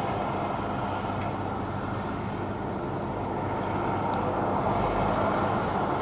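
John Deere S680i combine running steadily while harvesting, a continuous machine drone with a constant low engine hum underneath.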